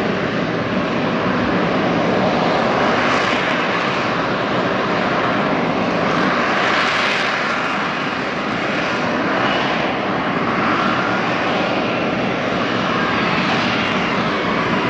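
F-35B Lightning II hovering on its F135 jet engine and shaft-driven lift fan in short takeoff/vertical landing mode: a loud, steady roar with faint wavering whistles over it.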